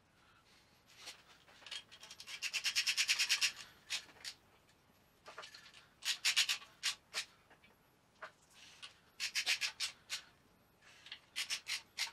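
Socket ratchet clicking in several short runs of rapid ticks, with pauses between, as 17 mm bolts are wound in to fit the alternator carrier bracket to the Cosworth engine block.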